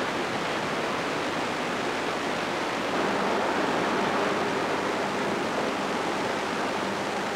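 Steady rushing hiss of noise on an analogue soundtrack, even and unbroken, a little louder from about three seconds in.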